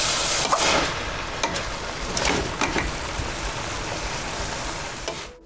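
Chopped root vegetables (carrot, burdock) sizzling in a metal pot as they are stir-fried and stirred, with a few short clicks of the utensil against the pot. The sizzle is loudest in the first second and fades out near the end.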